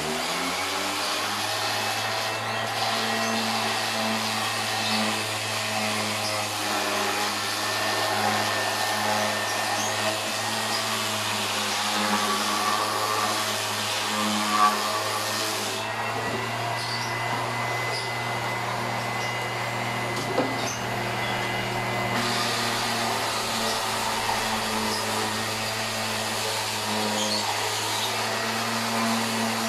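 NRT electric random orbital sander running steadily while sanding a plywood panel: an even motor hum with the hiss of the sanding pad on the wood. Two brief knocks, one near the middle and one about two-thirds of the way through.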